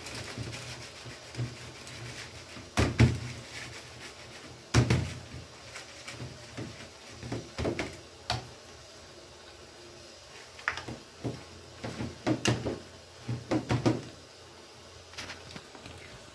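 Hand beating a thick jaggery-and-wheat-flour gulgula batter in a steel bowl: irregular wet slaps and knocks against the bowl, the loudest about three and five seconds in.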